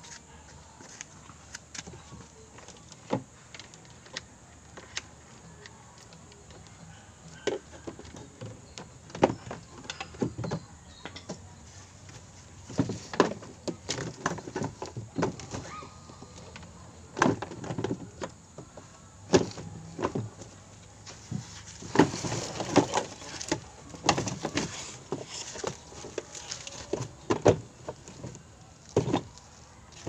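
Plastic washing-machine housing and parts being handled and fitted by hand: irregular knocks, clicks and clatter, sparse at first and busier in the second half, with a dense run of knocks about two-thirds of the way through.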